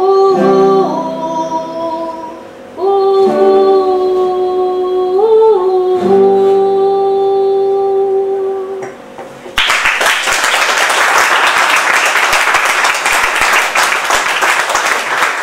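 A woman singing long held notes to an acoustic guitar, the song ending about nine seconds in. A small audience then breaks into applause.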